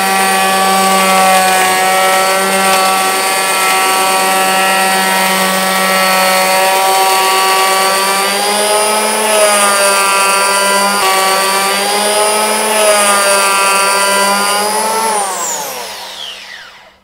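Virutex Planer Duo CE223X electric hand planer running with its spiral cutter shaving the edge of a door, a loud steady whine whose pitch dips briefly twice as it works. Near the end it is switched off and winds down, the whine falling away.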